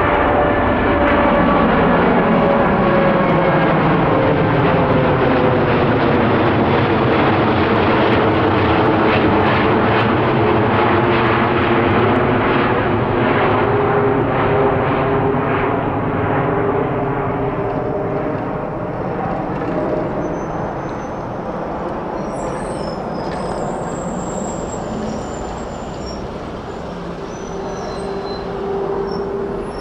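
Boeing 787 Dreamliner's twin jet engines on climb-out after takeoff: a steady jet roar with several tones gliding downward in pitch as the airliner passes overhead and draws away, fading in the second half. Faint high chirps come in near the end.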